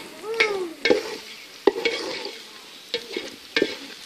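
Wooden spatula scraping and knocking against an aluminium pot while stirring shallots frying in oil, with a light sizzle throughout. There are several sharp knocks and a short downward-gliding squeak near the start.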